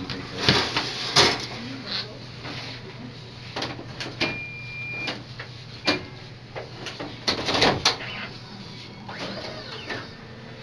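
A digital x-ray imaging plate being handled and fed into its reader: scattered clicks and knocks of the plate and the machine, over a steady low hum. An electronic beep of about a second comes near the middle, and a shorter beep follows.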